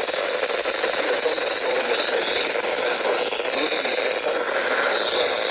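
Radio static: a steady hiss of an open, weak radio channel with faint wavering whistles in it.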